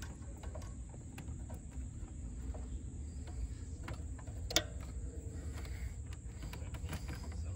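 Scattered small clicks and light scraping of hands and a screwdriver working on intake and turbo hardware in an engine bay, with one sharper click about four and a half seconds in, over a low steady rumble.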